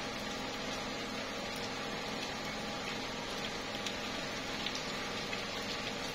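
Slow, steady rain falling on tree leaves: an even hiss with scattered drops ticking, and a faint steady hum underneath.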